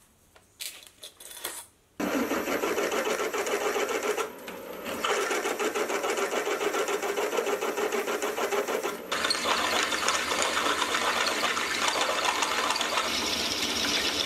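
A few light clicks, then about two seconds in a large Deming drill bit, freshly reground, starts cutting through steel plate in a milling machine. The drilling is a steady, fast chatter that eases for a moment around the fourth second and dips briefly near the ninth.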